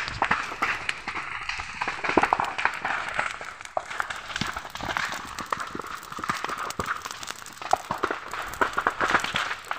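Dry grass and brush burning, with a dense, irregular crackling and popping over a steady hiss.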